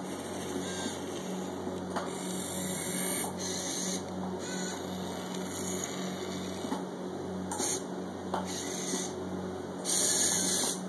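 Small electric motors and gearing of a 1:50 scale radio-controlled excavator model whirring in short spells over a steady, pulsing hum, as its arm and tracks are worked.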